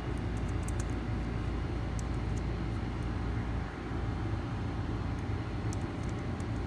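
Steady background noise, a low hum under a hiss, with a few faint ticks.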